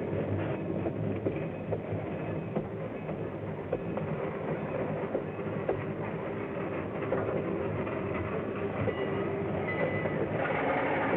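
A train running on the rails: a steady rumble and rattle of the cars, with scattered clicks of the wheels over the track.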